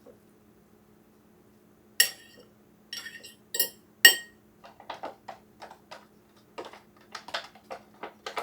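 Metal fork clinking sharply against a bowl several times, then a run of quicker, softer taps and scrapes as food is moved around in it.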